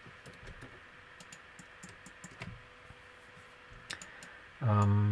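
Light, irregular clicks of a computer keyboard and mouse, several a second, as keyboard shortcuts and mouse clicks are entered.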